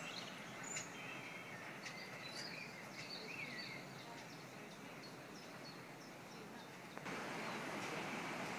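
Faint outdoor background hiss with small birds chirping now and then; the hiss steps up suddenly about seven seconds in.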